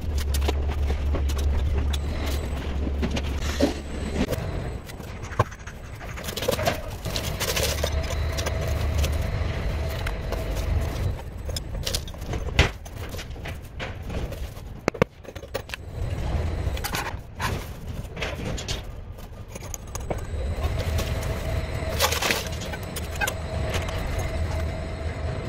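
Large porcelain tiles and adjustable pedestals being handled and set down: scattered scrapes, clinks and knocks of tile and metal, with a low rumble coming and going underneath.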